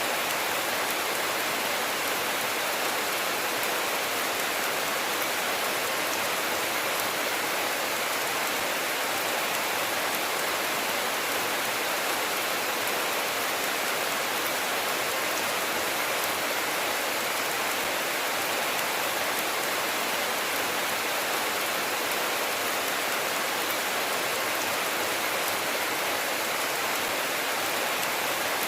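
Steady rain falling, an even hiss of drops on surfaces with no thunder.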